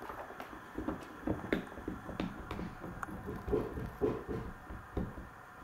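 Soft, irregular thumps and scuffs of a puppy and a rabbit moving about on a carpet.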